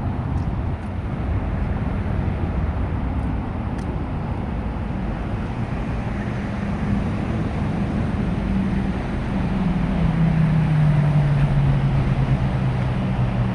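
Steady outdoor traffic noise, with a motor vehicle's engine hum that grows louder about ten seconds in and drops in pitch as it passes.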